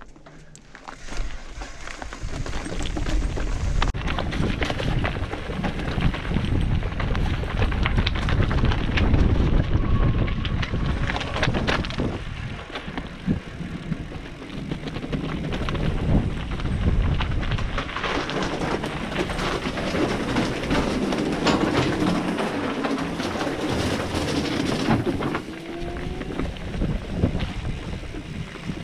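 Mountain bike riding over a rocky, leaf-covered singletrack: a steady rumble of tyres over stones, gravel and dry leaves, with many small knocks and rattles from the bike. It is quieter for the first second or so.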